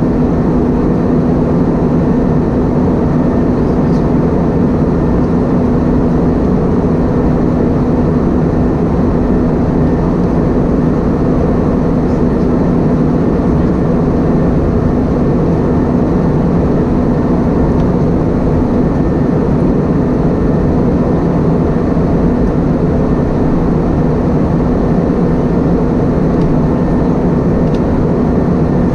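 Airbus A320-232 cabin noise: the IAE V2500 engines and airflow make a steady, loud roar with a constant low hum, unchanging throughout.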